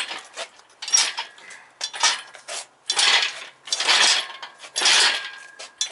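Engine hoist and its lifting chains clanking and rattling in bursts about once a second as the hanging engine and transmission are hoisted out of the car.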